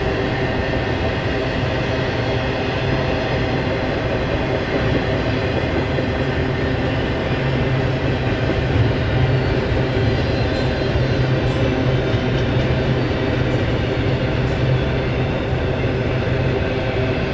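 Union Pacific intermodal freight train's double-stack container and trailer cars rolling past: a steady rumble of steel wheels on rail, with a few light clicks about two-thirds of the way through.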